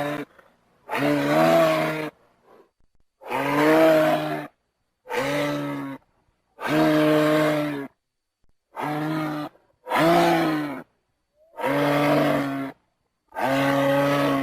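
Giraffe calls: a series of about eight low, moaning calls, each about a second long, holding a steady pitch that bends down at the end, with short silent gaps between them.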